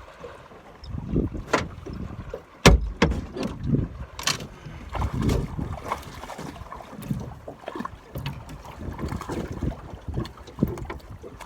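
Water slapping against a small boat's hull, with wind on the microphone and irregular knocks, the loudest sharp about three seconds in.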